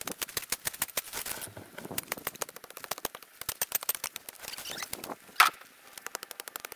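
Hand tools hacking and scraping through thick grass and thorny brush: a fast, uneven run of sharp clicks and snaps, with one louder sharp crack about five seconds in.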